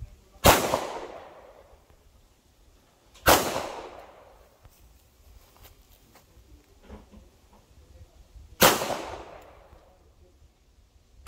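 Canik 9mm pistol firing three single shots, a few seconds apart, each sharp crack followed by about a second of echo.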